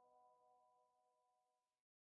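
Near silence: the last ringing notes of soft ambient background music fade away, then the sound drops out to complete silence near the end.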